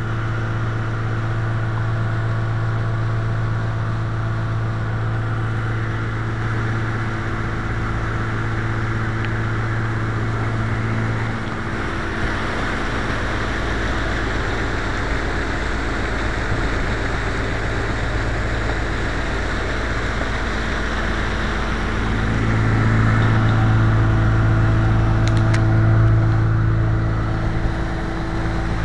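A 43-year-old Evinrude two-stroke outboard motor running under way, with water rushing past the hull. Its steady low note fades about a third of the way in and comes back louder for several seconds near the end.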